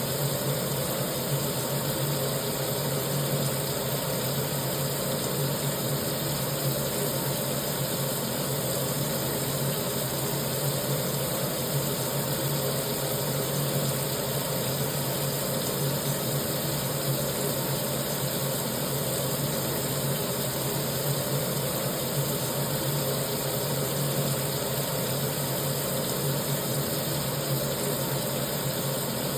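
Kitchen sink tap running, water streaming steadily into the basin in an even, unchanging rush.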